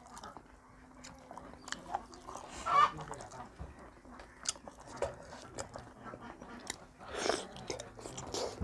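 Close-miked chewing and wet mouth sounds of someone eating dhido and chicken gravy by hand: many small smacking clicks, with a louder wet mouth sound about three seconds in and again near seven seconds.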